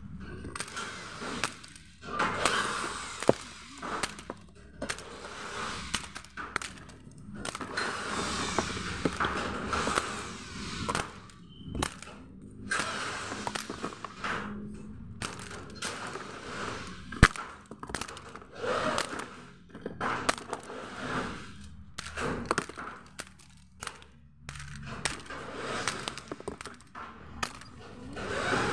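Cardboard and plastic packaging rustling and crinkling as items are lifted out of a box, with scattered knocks and clatter and one sharp crack a little past the middle.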